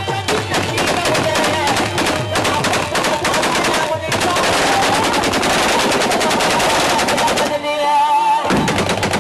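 Rapid, sustained automatic gunfire in dense overlapping volleys over loud music, with a brief break about four seconds in. The firing stops about seven and a half seconds in, leaving the music with singing.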